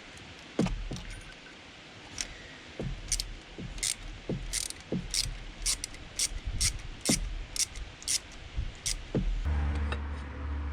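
Metal tools and parts clinking against each other: a string of sharp metallic clicks, about one or two a second. About nine and a half seconds in, a steady low hum starts.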